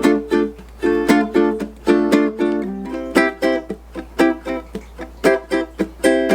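Ukulele strummed in a steady rhythm, changing between two chords, one of them D minor.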